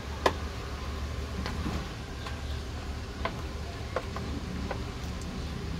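Sharp, irregular clicks and pops from a pot of fish braising in boiling fermented fish sauce, the loudest about a quarter second in, over a steady low hum.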